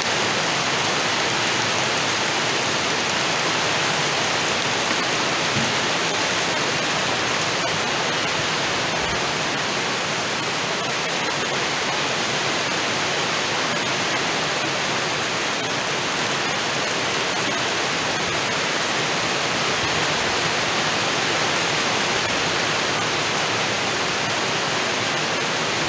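Heavy rain falling steadily, an even unbroken hiss, with water pouring off the edge of a roof.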